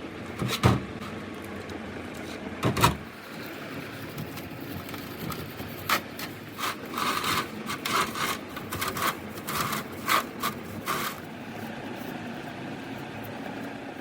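Two heavy knocks, then a run of short, irregular scraping strokes lasting about five seconds, over a steady low hum.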